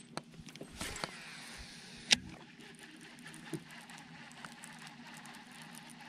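A few sharp clicks and knocks, the loudest about two seconds in and a weaker one a little later, with a short swish about a second in, over a faint steady hum.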